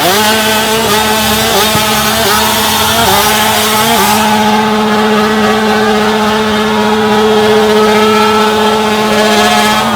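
Motorcycle engine revved up quickly and then held at high, steady revs, with small dips about three and four seconds in.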